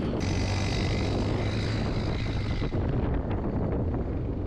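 Motorcycle engine running at steady revs for about two and a half seconds, then dropping away, with wind buffeting the microphone throughout.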